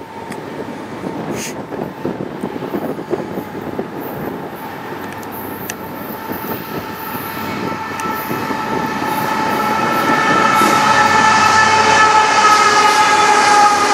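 CN manifest freight train approaching, its rumble growing steadily louder. From about eight seconds in, a steady pitched tone builds to the loudest sound, sinking slightly in pitch near the end.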